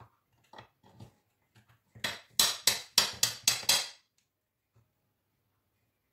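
A kitchen utensil scraping against a dish: a few faint strokes, then, about two seconds in, some six loud quick scrapes in two seconds, made while cream is being spread on a cake.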